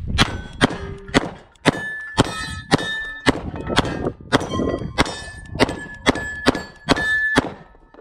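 A rapid string of about fourteen sharp strikes, roughly two a second, each leaving a metallic ring: steel targets being hit by shots in quick succession. The ringing stops about seven and a half seconds in.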